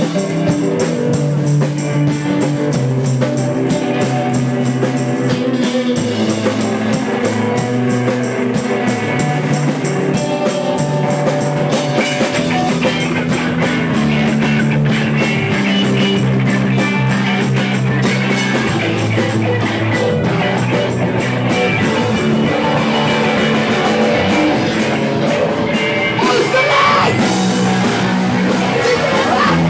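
Rock band playing live on drum kit and guitar, the chords changing every couple of seconds.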